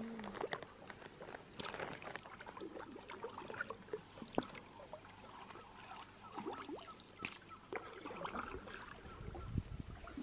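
A hand paddle dipping and pulling through river water beside a wooden canoe, at an unhurried pace: soft, irregular splashes and drips, with a few light knocks.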